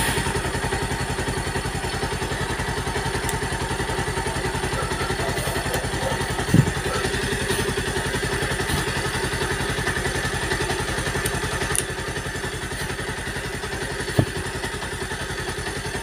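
Kawasaki Rouser 180's air-cooled single-cylinder four-stroke engine idling steadily just after a start, with its alternator charging the battery. There is a light knock about six and a half seconds in and another near the end.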